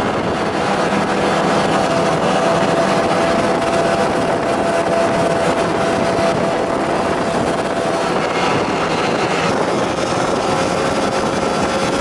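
Snowmobile engine running steadily under way, heard from the rider's seat, with a constant rush of noise over it; its steady whine shifts slightly lower about nine seconds in.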